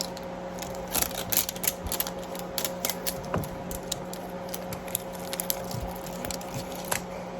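Irregular light clicks and crackles of toy packaging being handled and opened, over a steady low hum.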